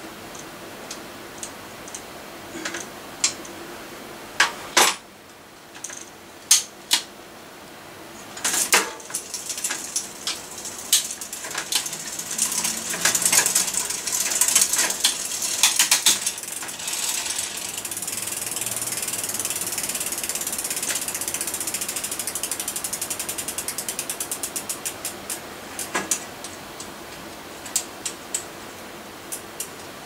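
Mountain bike drivetrain being worked by hand during a gear adjustment: clicks and chain clatter as the cranks turn and the gears shift, then the rear freewheel ratchet ticking rapidly as the wheel spins free, the ticks slowing and spacing out as it runs down.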